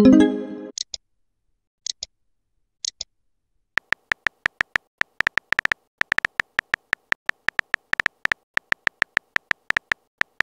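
Chat-app sound effects: a message-sent chime at the start, then three pairs of short high blips over the next three seconds. From about four seconds in, a fast run of keyboard typing clicks, about six a second, goes on until just before the end.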